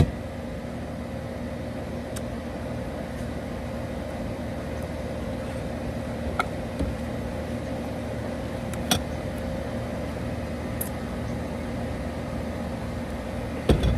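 Steady hum of a running air-conditioner unit, with a couple of faint clicks and a knock near the end.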